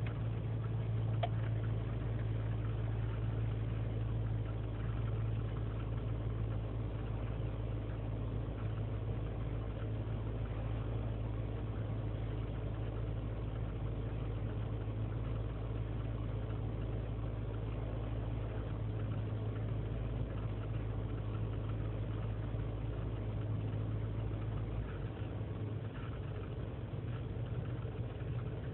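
A 2003 GMC Sierra's 5.3-litre V8 idling on its own soon after a cold start in freezing weather. Near the end its steady low note breaks up. The idle is rough and erratic while cold, with lean and misfire codes, which the owner puts down to a failing intake manifold gasket.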